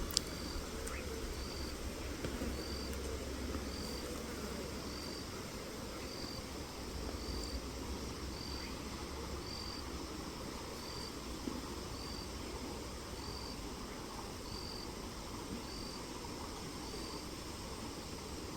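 An insect chirps in an even rhythm, about once a second, a short high-pitched note each time. Under it runs a low rumble of wind buffeting the microphone.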